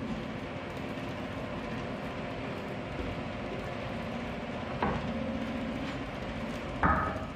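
Makita LB1200F bandsaw running with no load, a steady motor and blade hum. Two short knocks, about five and seven seconds in, as wooden boards are handled at the table.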